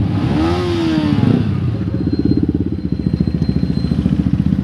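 Motorcycle engines close by. About a second in, one engine's note rises and falls with a rev, then a bike idles with a rapid, even thumping beat as the bikes pull up and stop.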